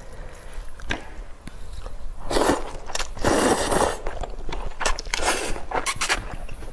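A woman eating noodle soup close to the microphone: a few sharp clicks, then two noisy slurps about two and a half and three and a half seconds in, followed by a run of short chewing sounds.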